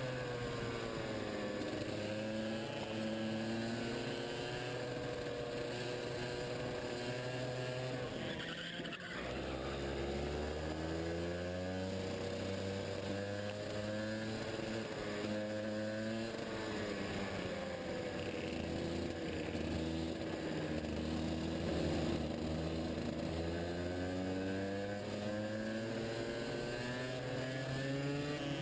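Racing kart engine heard onboard at full race pace, its pitch climbing steadily and then dropping back again and again. The engine note briefly cuts about nine seconds in before picking up again.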